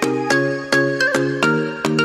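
Background music: a light, bouncy tune of short struck notes in a steady rhythm, about three notes a second.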